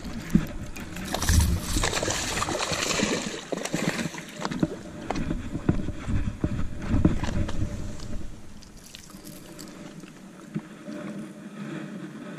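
Irregular rustling, scraping and knocking from an angler moving and handling rod and line while a spotted bass is reeled in and landed, with scattered small clicks; busiest in the first few seconds and quieter near the end.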